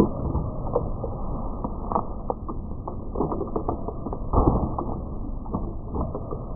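Slowed-down replay audio: a dull, pitched-down rumble of outdoor noise with scattered clicks and knocks through it.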